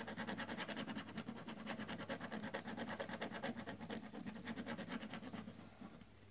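Ballpoint pen scratching on paper in rapid back-and-forth shading strokes, several a second, dying away near the end.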